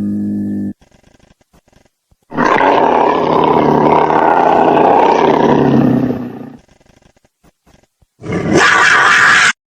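Nyango, the mutant cat kaiju's roar sound effect: the falling tail of one call, then a long roar lasting about four seconds, then a shorter roar near the end that cuts off abruptly.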